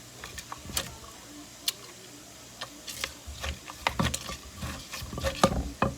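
Someone eating green papaya salad: irregular wet clicks and smacks of chewing and lips, with soft low thuds, coming thicker in the second half.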